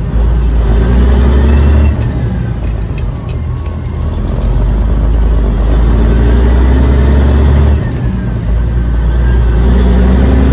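Caterpillar 3406 diesel of a Peterbilt 359 running loud through 8-inch straight exhaust stacks, its deep note dipping briefly about two seconds in and again near eight seconds.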